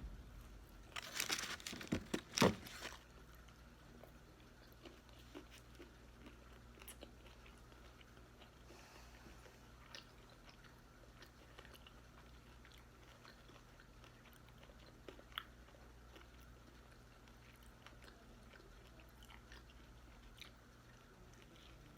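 A person biting and crunching food close to the microphone. A burst of crunching in the first three seconds is followed by faint, scattered chewing clicks.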